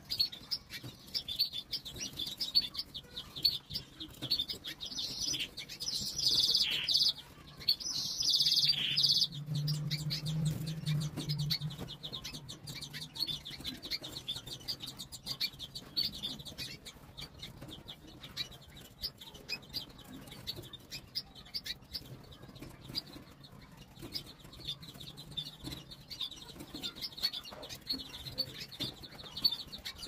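Canaries chirping in a quick, continuous run of high twitters, with several louder calls about five to nine seconds in. Light clicks come from a bird moving about the cage and nest, and a low hum sounds briefly around ten seconds in.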